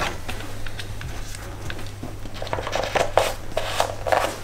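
Light plastic clicks and rustling as hands work at the open oil filler on the BMW M52 engine's valve cover, over a steady low hum.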